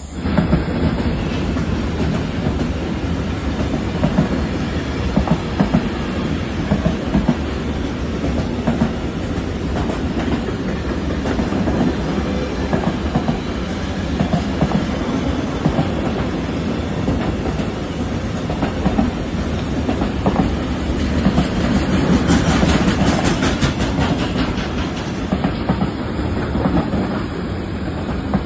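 Long freight train of tank containers and box containers passing, a steady rumble of wagons with repeated clacks of wheels over the rails. It grows loudest about three quarters of the way through.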